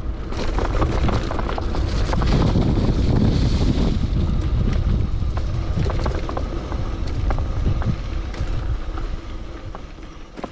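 Wind buffeting an action camera's microphone while riding a bicycle, with scattered clicks and rattles from the bike. The wind noise eases off near the end.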